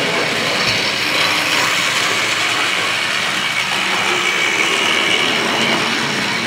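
OO gauge model train running steadily on the layout: the locomotive's small electric motor whirring and its gears and wheels rattling over the track.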